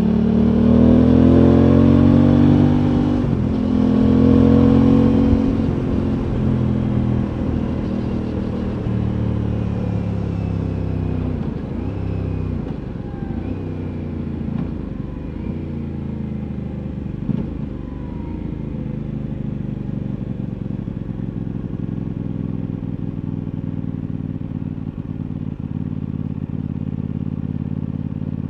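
Aprilia Tuono 660's parallel-twin engine pulling hard twice in the first five seconds, with a brief break about three seconds in, the pitch rising each time. The rider then rolls off, the pitch falls, and the engine runs at a lower, steady note.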